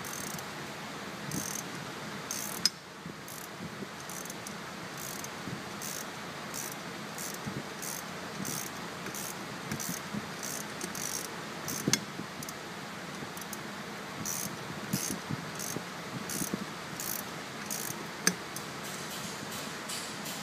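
Hand ratchet wrench clicking in short bursts over and over on its return strokes, tightening the V-band clamp on a stainless turbo manifold and turbine housing. A few sharp metal clinks sound among them, about a quarter, halfway and nine-tenths of the way through.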